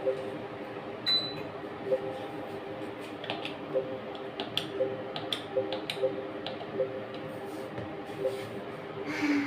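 Hyosung ATM keypad being pressed: about a dozen quick key presses, each a short click or beep, while an amount is keyed in, over a steady low hum.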